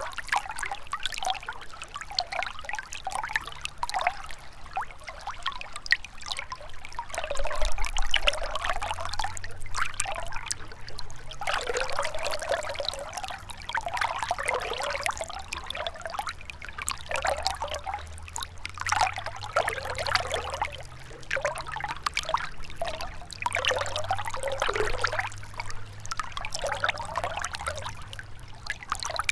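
Gentle river flowing, its trickling and splashing rising and falling in uneven surges, over a faint low rumble.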